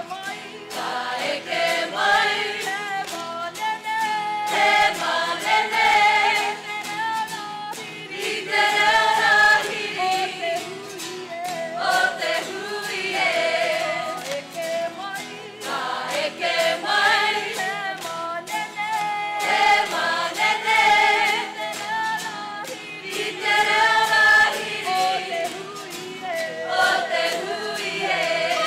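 Kapa haka group of men and women singing a Māori action song (waiata-ā-ringa) together in phrases of a few seconds, to a strummed acoustic guitar.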